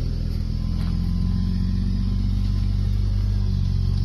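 Jeep engine running steadily under throttle, a low drone that picks up right at the start and holds.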